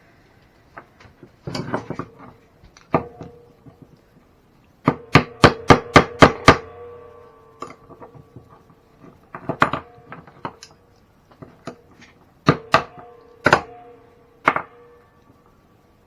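A hammer tapping on metal parts while taking apart an RC truck. It comes in clusters of sharp strikes, one quick run of about seven, and several strikes leave a short metallic ring.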